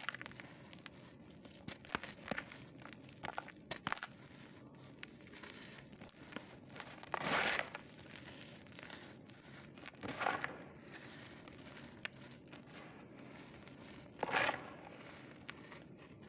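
Dry dirt lumps being crushed and crumbled by hand in a plastic tub: dense little crackles and crunches with powder sifting back down, and three louder crunching rushes in the second half as handfuls are squeezed.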